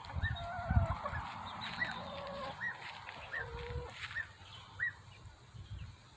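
Backyard hens clucking, with several drawn-out calls held on one pitch and a run of short, high chirps repeating every second or less.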